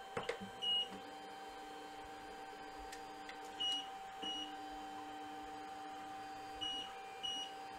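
EcubMaker TOYDIY 4-in-1 3D printer auto-homing with its laser engraving head fitted: the stepper motors hum steadily in stretches of a couple of seconds as the head moves. Short, high electronic beeps from the printer break in about five times, mostly in pairs about half a second apart.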